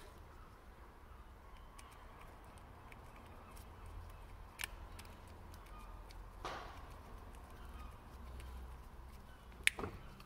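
Small screwdriver working a tiny screw into a plastic remote key case: a few faint clicks and scrapes of metal tip and plastic, the sharpest click near the end, over a low steady hum.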